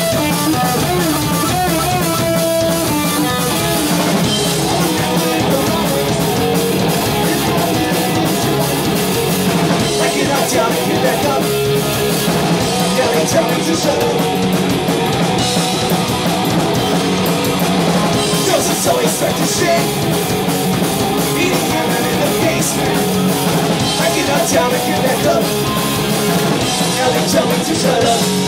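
Live punk rock band playing a song: electric guitars and drum kit, loud and steady.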